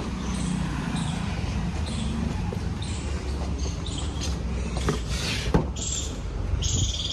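Door handle and latch of a Mahindra Thar clicking as the driver's door is pulled open, with a couple of sharp clicks about five seconds in, over a steady low rumble.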